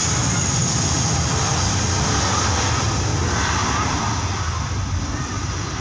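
Super Air Jet Airbus A320's twin jet engines running loud as the airliner rolls along the runway past and away, with a high hissing whine that is strongest at first; the sound eases off a little over the last second or so.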